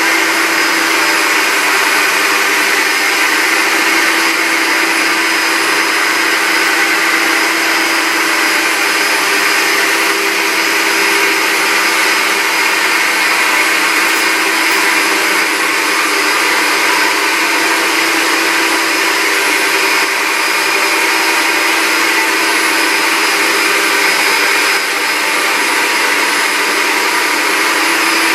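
Concrete floor grinder running steadily on a freshly poured concrete slab: a loud, even motor whine with a steady hum, unchanged throughout.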